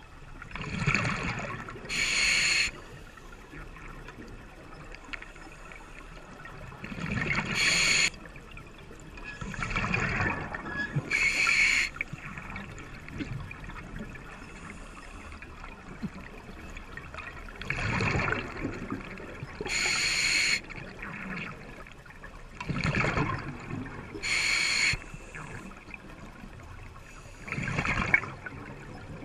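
A scuba diver breathing underwater through a regulator: about six slow breaths a few seconds apart, each a gurgle of exhaled bubbles followed by the short hiss of the regulator's demand valve on the inhale.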